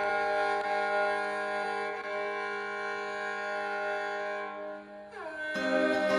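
Instrumental music: a long held chord rings for about five seconds, then the pitch slides down into a new chord, with plucked notes coming in near the end.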